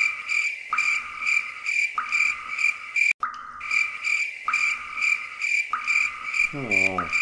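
Cricket-like chirping: a high chirp pulsing about three times a second over a lower, longer chirp that repeats every second or so. Near the end comes a short pitched sound falling in pitch.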